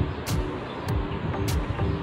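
Background music with a bass line and sharp percussion hits.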